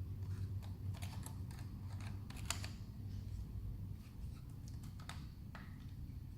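Plastic clicks and taps as the foil head cover of a Wahl 5 Star Finale shaver is handled and pushed against the body, not snapping into place without its release button pressed.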